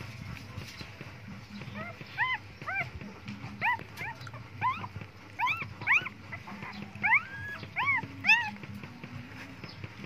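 Newborn puppies whimpering: about a dozen short, high-pitched cries, each rising and falling in pitch, coming irregularly over several seconds, with one longer, flatter cry near the end.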